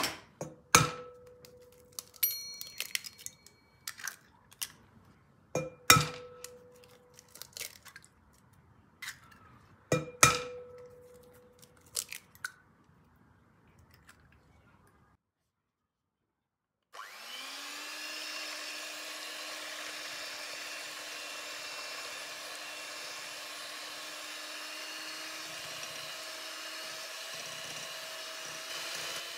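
Eggs cracked against the rim of a glass mixing bowl: a handful of sharp knocks, several with a short glassy ring, during the first dozen seconds. About seventeen seconds in, an electric hand mixer starts up and runs at a steady pitch, beating the eggs.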